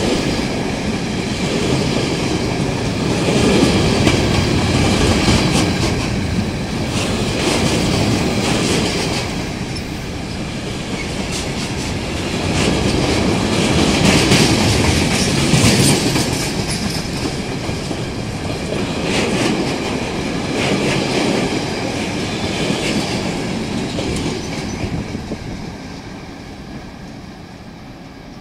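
Freight train rolling through the station, its wagons' wheels running over the rails in a steady rumble that swells and eases several times, then fades away near the end.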